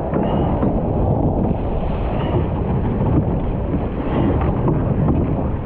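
Wind buffeting the camera's microphone over water rushing past the hull of a surf boat being rowed at sea.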